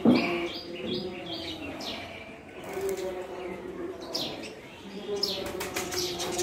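Pet rose-ringed parakeets giving short, high chirps and squawks in several bursts, starting with a loud sharp call, then again around two seconds in and between four and six seconds in.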